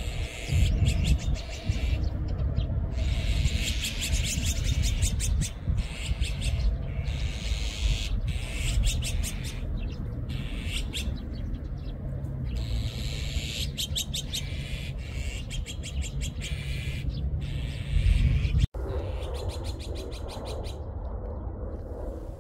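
A flock of azure-winged magpies calling noisily, call after call of quick, rasping strokes, over a steady low rumble. The calls thin out and stop after a cut about three-quarters of the way in.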